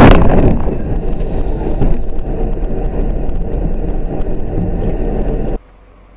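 A sudden loud bang of a car collision, then the steady road and engine noise of the dashcam car driving on. It cuts off abruptly about five and a half seconds in.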